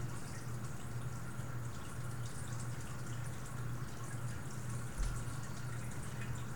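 Steady low hum over a faint background hiss, with one soft low thump about five seconds in.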